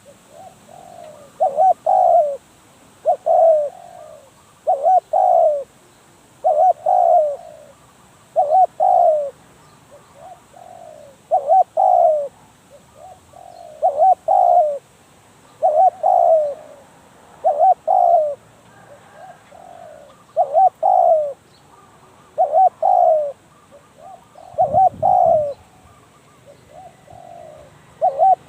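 Spotted dove cooing: the same short multi-note phrase repeated steadily about every two seconds. There is a brief low thud near the end.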